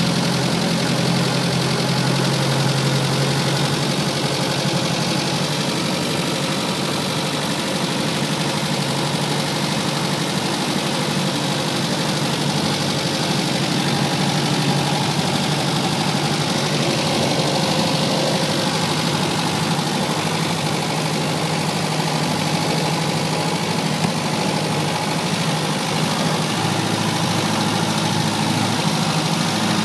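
Unimog 411 four-cylinder diesel engine running steadily, its low hum shifting slightly in pitch now and then.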